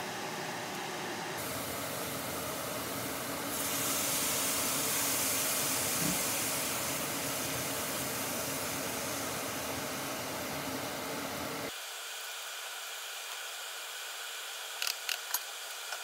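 Steak strips, Brussels sprouts and carrots sizzling and steaming in a hot stainless steel pan, a steady hiss that grows louder about four seconds in and thins abruptly near twelve seconds. A few sharp clicks near the end.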